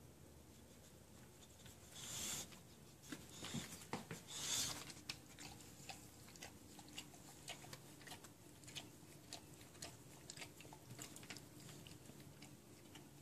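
A boxer dog licking and nibbling at its still-damp coat after a bath, grooming itself. It makes a run of faint, quick clicks and smacks, with a few louder rustling bursts in the first five seconds.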